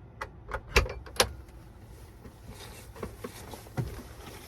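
Campfire of firewood crackling, with several sharp, separate pops, the loudest about a second in.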